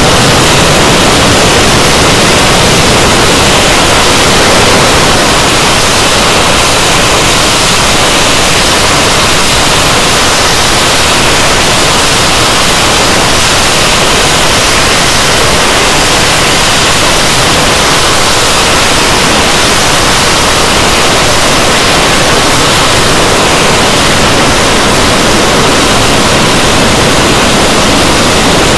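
Twin Rolls-Royce Avon turbojets of an English Electric Lightning F.6 running on the ground: a steady, very loud rushing roar with no breaks.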